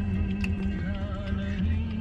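Music playing: a wavering melody over a steady held low note.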